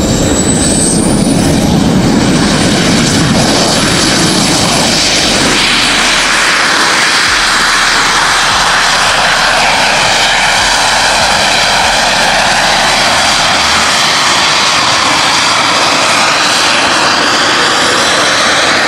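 Volonaut Airbike's compact jet turbines running in flight: a loud rushing blast with a high whine that rises over the first few seconds and then holds steady.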